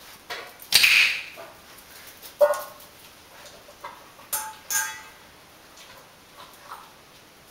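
A few sharp clicks and clatters, the loudest about a second in, then a pair of short ringing metallic clinks near the middle, as a rottweiler puppy eats from a stainless steel food bowl.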